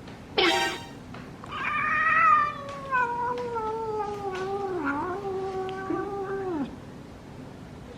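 Domestic cat giving a short harsh cry, then one long drawn-out yowl that slowly falls in pitch over about five seconds: a hostile warning yowl at an unfamiliar cat.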